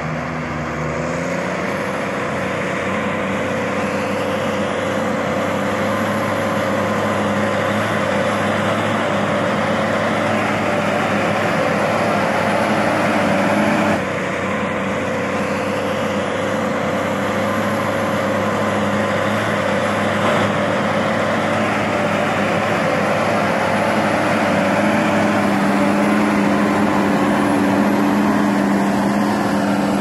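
Case IH MX240 tractor's six-cylinder diesel engine running steadily under heavy load as it pulls a single-furrow plough deep through the soil. There is a slight drop in level about halfway through, and the engine's hum grows stronger near the end.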